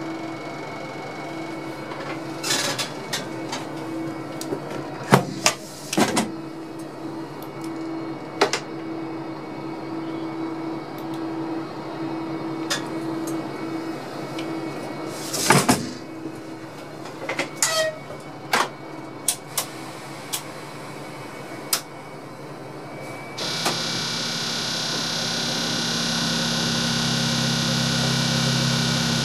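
Inside the cab of a class 362 electric locomotive at standstill: a steady electrical hum with scattered sharp clicks and knocks. About two-thirds of the way through, a louder steady whirring of the locomotive's machinery switches on suddenly and slowly grows louder.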